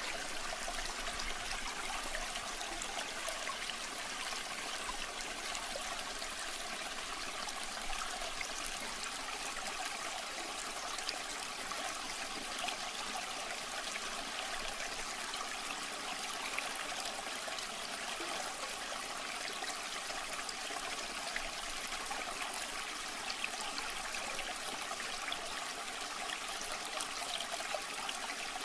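River water flowing and trickling steadily over stones, a continuous babbling of a shallow stream.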